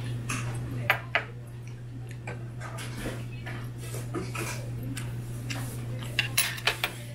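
Cutlery clinking against dishes on a table: two sharp clinks about a second in and a quick run of clinks near the end, over a steady low hum.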